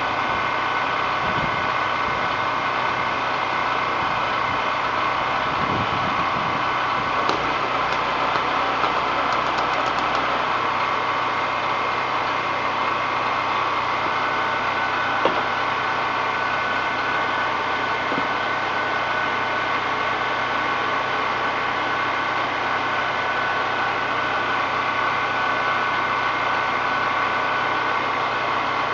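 Small portable generator engine running steadily under load, with a few faint clicks.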